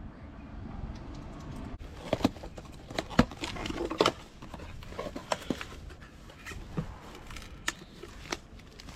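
Irregular sharp clicks and knocks of handling, starting about two seconds in, with the loudest two near the middle.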